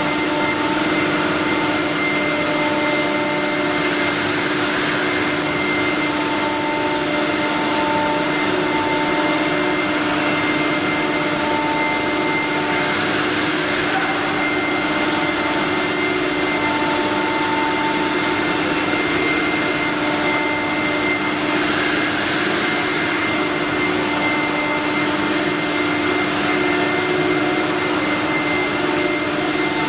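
Multi-spindle CNC wood router running, with a steady hum and whine from its spindles over a continuous rushing noise. A higher tone comes and goes every few seconds.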